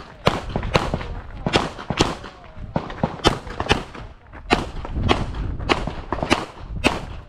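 Semi-automatic handgun fired in rapid strings of shots, many in quick pairs (double taps), about a dozen shots with a short break near the middle.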